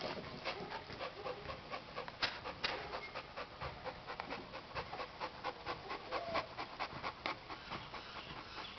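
A boxer dog panting hard and fast in a steady rhythm, out of breath from tugging and fighting his rope toy.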